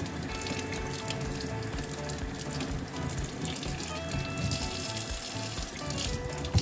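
Kitchen tap running steadily into a stainless steel sink, the stream splashing over a small mackerel being rinsed by hand.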